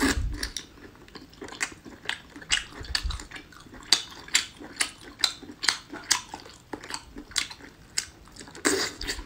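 Close-miked chewing of grilled abalone: wet mouth clicks and smacks about two to three a second, with a louder bite at the start.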